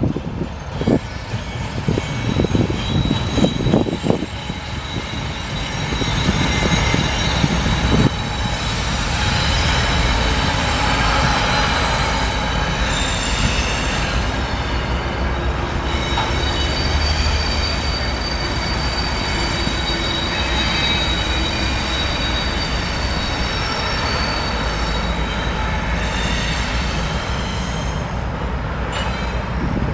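Freight train passing: a BNSF diesel locomotive rumbles by with irregular heavy knocks over the first several seconds. Double-stack intermodal container cars follow, rolling past with a steady rumble and high-pitched wheel squeal.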